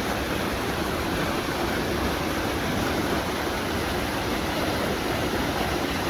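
Rushing mountain stream: a steady, even roar of fast water.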